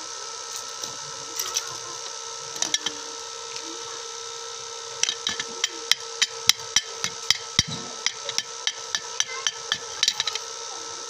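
Hammer blows: a few scattered strikes, then a steady run of about three strikes a second from about halfway through.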